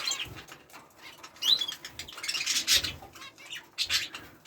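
Small aviary birds, zebra finches among them, chirping in short calls with flutters of wings; the busiest, loudest stretch comes about two and a half seconds in.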